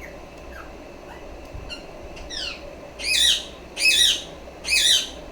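Ringneck parrot calling: a few faint short chirps, a quick falling trill, then three loud harsh screeches about a second apart in the second half.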